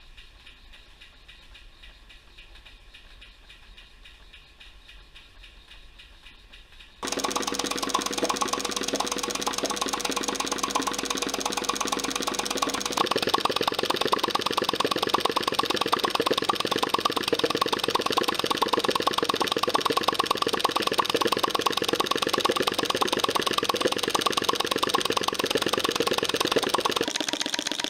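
Model flame-licker (vacuum) engine running fast with a loud, rapid, even beat, drawing in the burner flame on each stroke. For about the first seven seconds only a fainter machine sound is heard, then the loud running starts abruptly.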